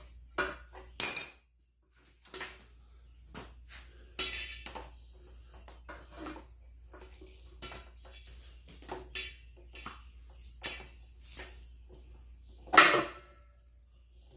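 Metal hand tools and fittings clinking and clanking in irregular knocks as the old air hose is worked off an air compressor; the loudest clanks come about a second in and near the end.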